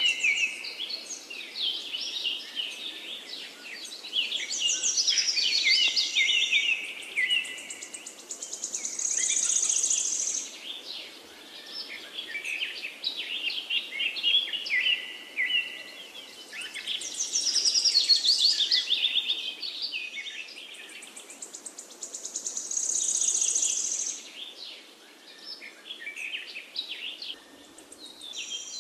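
Birdsong: many quick, high chirps and trills from several birds, coming in waves that rise and fall in loudness.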